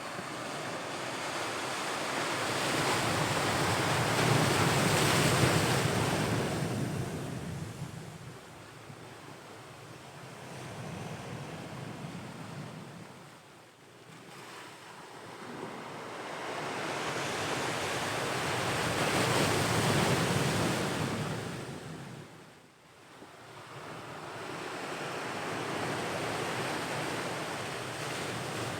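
Ocean waves breaking and washing on the shore, the surf swelling and fading in slow surges, two big ones and two smaller ones, with some wind on the microphone.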